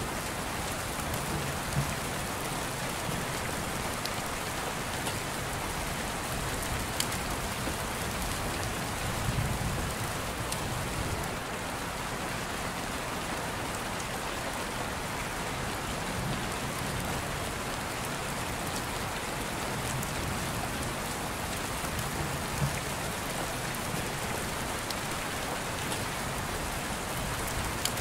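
Steady rain, an even hiss with no let-up, with a few faint ticks here and there.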